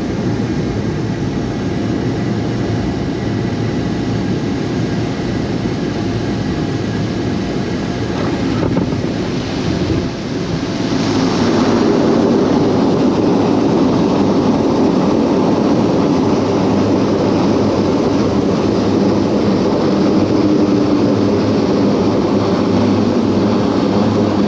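Small plane's engine running steadily, growing louder about ten seconds in.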